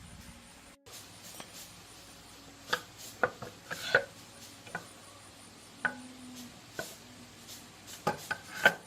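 Hand tools clicking and knocking in an irregular run of sharp strikes with some rubbing between them, the loudest cluster near the end.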